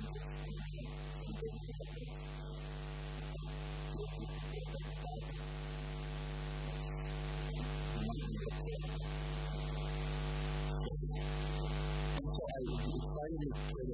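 Steady electrical mains hum, with soft keyboard music faintly underneath.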